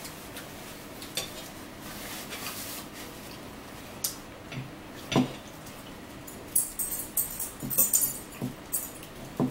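Cutlery clinking and scraping against plates and dishes at a meal, with a soft paper rustle at first. Scattered knocks come from about four seconds in, then a quick run of sharp metallic clinks in the second half.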